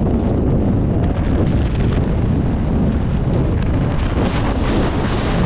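Wind buffeting the microphone, a steady deep rumble, as a tandem skydiving pair descends under an open parachute canopy.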